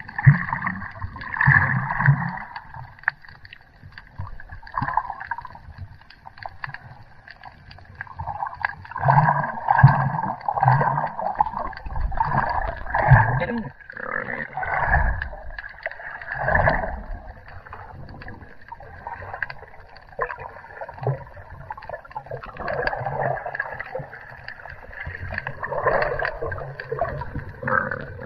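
Muffled underwater sound of water moving around a camera held just below the surface: uneven sloshing and gurgling surges.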